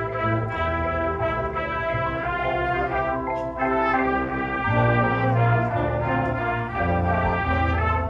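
Marching band brass playing held chords, with trumpets on top and heavy low brass underneath, moving from chord to chord every second or so.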